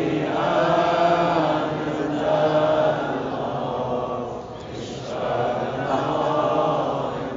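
A voice chanting a devotional recitation in long, drawn-out melodic phrases, breaking off briefly about four and a half seconds in.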